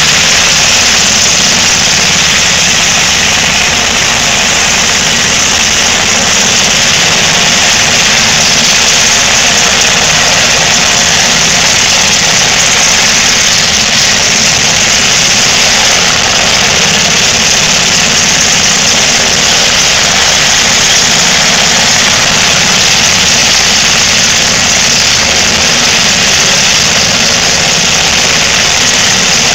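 UH-60 Black Hawk military helicopter idling on the ground with its rotors turning: a loud, steady turbine and rotor noise with a strong hiss, unchanging throughout.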